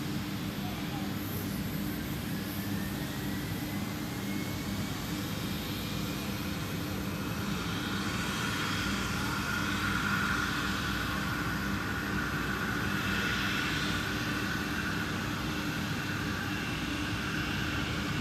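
Airplane engines running steadily, with a thin whine that rises in pitch early on, then higher whining tones growing a little louder.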